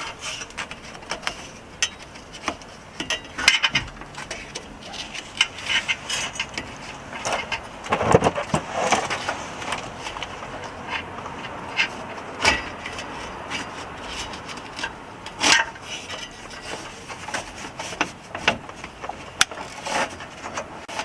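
Irregular clicks, knocks and scrapes of a handbrake cable and metal parts being handled and pushed through into the car's cabin, with a louder scraping clatter about 8 s in.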